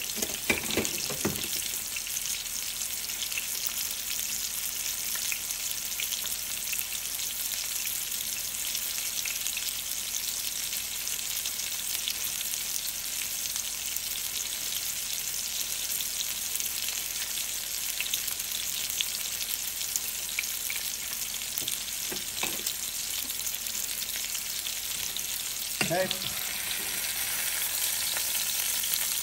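Sous-vide beef steaks searing in hot olive oil in a pan for a quick crust: a steady sizzle with scattered small pops. Brief clatters of tongs against the pan come at the start and near the end, as the steaks are turned.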